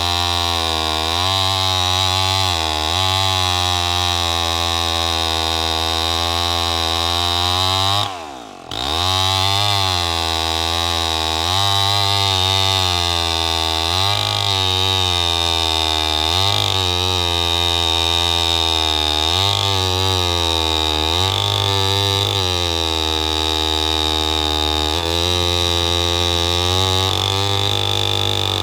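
Homelite C-91 two-stroke chainsaw engine running, its speed rising and falling repeatedly with the throttle. About eight seconds in the engine speed drops sharply, nearly dying, then climbs back up.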